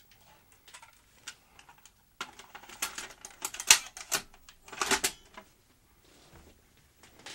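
Clicks and clunks of a Skantic VCR-LP (Philips N1700 clone) video recorder's cassette compartment being lowered and pressed shut by hand. A quick run of clacks comes about two seconds in, loudest just under four seconds in and again at about five seconds.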